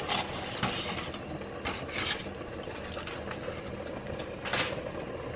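Cookware being handled: a few short scrapes and light clatters, the clearest about two seconds in and another about four and a half seconds in, over a faint steady low hum.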